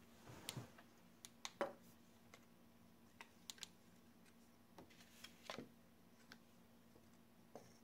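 Faint, scattered light clicks and taps as small objects, a paint palette plate and a plastic toy figurine, are handled and set down on a table.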